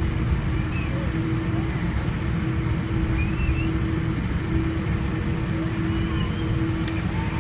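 Boeing 787-9 airliner cabin noise: a steady low rumble of the engines and airflow with a constant hum running through it.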